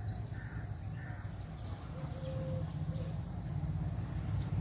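Outdoor ambience: birds calling a few short times over a steady high-pitched insect drone and a low rumble.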